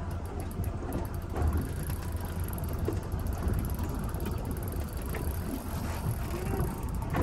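Low, uneven rumble of wind on the microphone and the boat's own noise at sea, with no clear separate event standing out.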